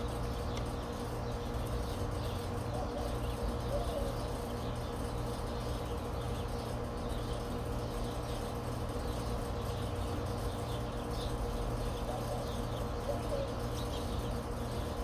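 Steady outdoor background noise with a low hum and a few faint bird calls, twice in short groups.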